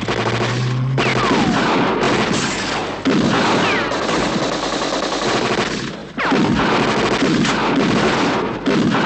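Rapid, sustained gunfire from rifles in a film shootout, shot after shot with brief lulls about three and six seconds in. Several falling whines run through it, like bullet ricochets.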